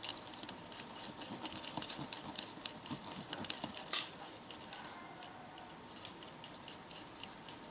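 Thin stick stirring a thickening glue-and-laundry-powder slime mix in a small plastic cup: a fast run of light, wet clicks and ticks, with one sharper click about four seconds in.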